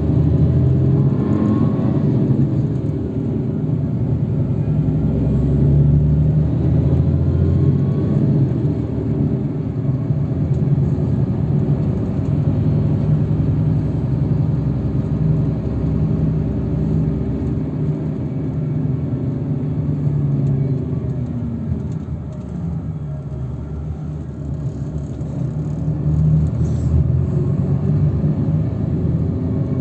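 Steady low rumble of a moving road vehicle heard from inside, engine and road noise together, the engine's pitch sliding up and down as the vehicle changes speed.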